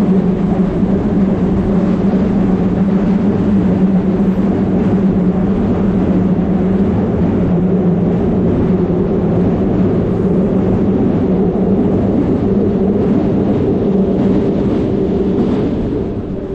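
Steady low drone of road traffic on the elevated roadway overhead, a constant rumbling hum that eases slightly near the end.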